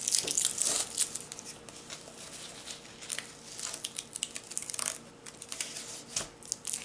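Paper wrapping around a rolled diamond painting canvas crinkling and rustling as it is handled and turned. The crackles come in spells, densest in the first second and again about three to five seconds in.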